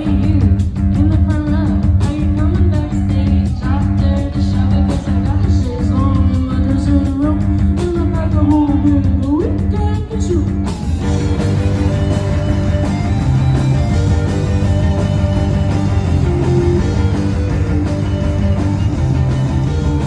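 Live indie rock band: two electric guitars, bass and drums, with a woman singing over them. About eleven seconds in the drum beat drops out and the guitars and bass carry on with steady held notes.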